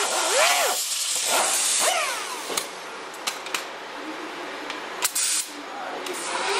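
Pneumatic right-angle grinder with a small abrasive disc, whining at high speed while it strips rust from a car's rocker panel, its pitch dipping and recovering as it is pressed to the steel. About two seconds in it spins down, leaving a hiss of air broken by a few short sharp sounds, and it speeds back up at the very end.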